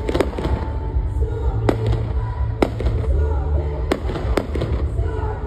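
Aerial fireworks shells bursting: about half a dozen sharp bangs, a pair right at the start and then one every second or so, over a steady low rumble.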